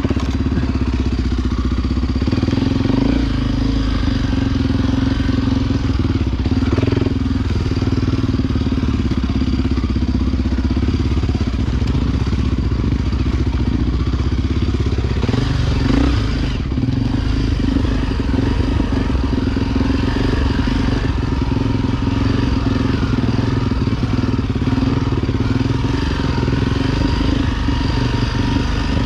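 Honda XR Tornado 293 single-cylinder four-stroke motorcycle engine running steadily while riding an off-road trail, with a few short knocks and clatters about 3, 7 and 16 seconds in.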